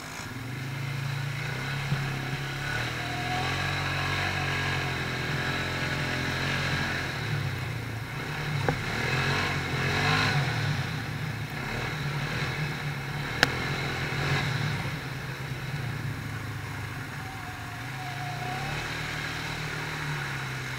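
Quad bike engine running under way, its pitch rising and falling as the throttle opens and closes. A few sharp knocks sound over it, the loudest about thirteen seconds in.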